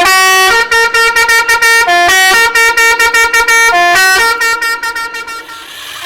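A short tune played in bright, horn-like tones. A phrase of a longer low note followed by quick repeated higher notes comes round three times, then the tune fades about five seconds in.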